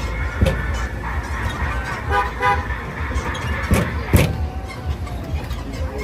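Boardwalk tram horn sounding a quick run of short toots about two seconds in. Underneath is the low rumble of the moving tram, with a few sharp knocks.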